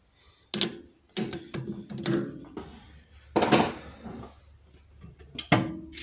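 Several sharp metallic clanks and clinks, each ringing briefly, as the part is seated and clamped in a lathe's three-jaw chuck; the loudest comes about three and a half seconds in. The lathe is not running.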